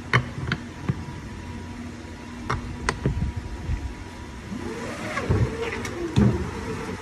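Workshop machinery running with a steady hum, broken by several sharp clicks and knocks. A rising and falling whine comes in about five seconds in.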